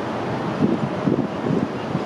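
Steady city street traffic noise, with wind gusting on the microphone from about half a second in.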